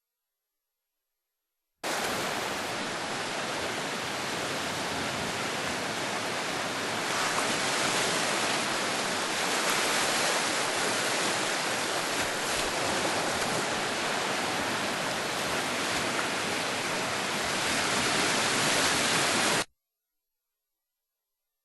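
A steady rushing hiss like running water or a waterfall, starting abruptly about two seconds in and cutting off abruptly a couple of seconds before the end, with silence on either side.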